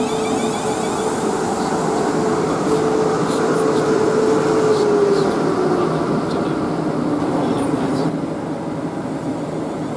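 Siemens Class 450 Desiro electric multiple unit coming to a stop at a platform. Its traction motor whine falls in pitch from about halfway through as it brakes, over the rumble of the train's running.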